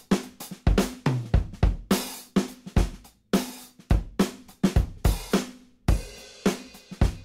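Background music with a steady drum-kit beat: kick, snare, hi-hat and cymbals, about two hits a second.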